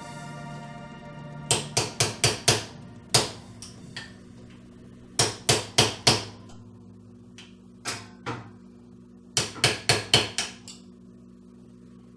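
Light hammer taps on a 1/2 inch deep socket and extension, driving a new metal-insert washer coupler down onto the transmission shaft. The taps come in quick groups of five or six with a few single taps between.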